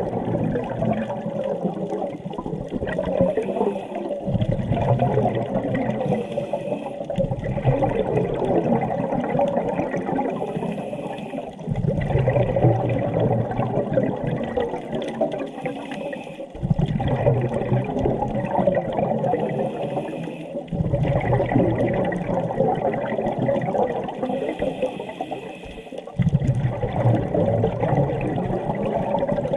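Scuba diver breathing through a regulator underwater: each exhalation sends out a rush of gurgling bubbles, with a quieter inhalation between them, about every four to five seconds.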